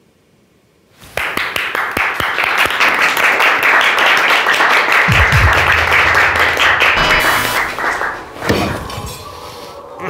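A small group of people clapping their hands. The clapping starts about a second in and dies away after about seven seconds.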